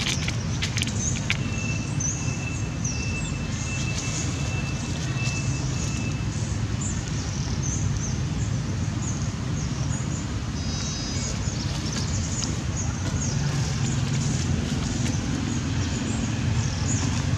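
Steady outdoor background noise: a low rumble under a faint high hiss with scattered small chirps, and a thin steady high tone lasting about five seconds, starting a second in.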